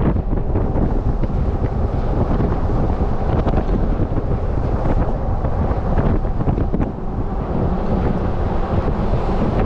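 Wind buffeting the microphone of a camera on a moving vehicle: a loud, steady, low rush with no break.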